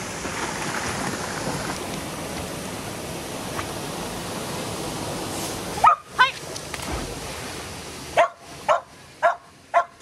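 Steady rush of a waterfall and mountain stream, then a border collie barking: two short sharp barks about six seconds in and four more near the end.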